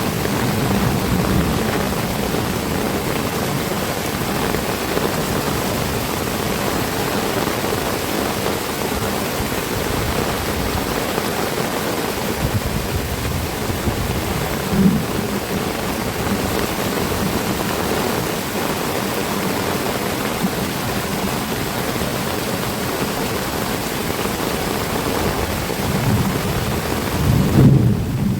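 Heavy rain pouring steadily, with a short low rumble about halfway through and a stronger one near the end.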